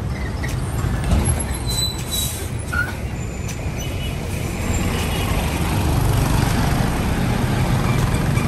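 City bus passing close and pulling away, its engine running with a low rumble that grows louder through the second half. A short hiss of air, typical of an air brake, comes about two seconds in, over the general traffic noise of motorbikes.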